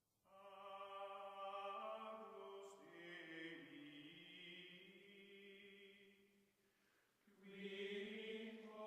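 Quiet outro music of long, held choir-like chanted notes. The notes die away about six and a half seconds in, and a new one starts about a second later.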